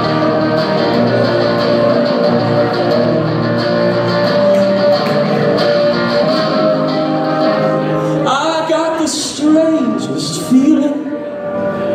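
Live electric guitar playing held, ringing chords, with a man's singing voice coming in about eight seconds in.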